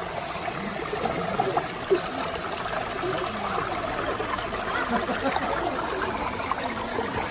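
Shallow mountain stream trickling steadily over rocks.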